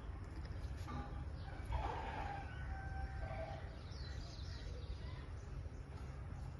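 A long, drawn-out bird call about two seconds in, lasting over a second, then a few brief high chirps a little later, over a steady low hum.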